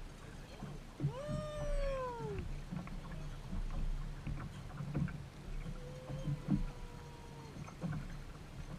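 Two drawn-out animal calls over a steady low hum and scattered knocks. The first call arches up and then falls, about a second in. The second, longer call holds a nearly steady pitch and drops off at its end.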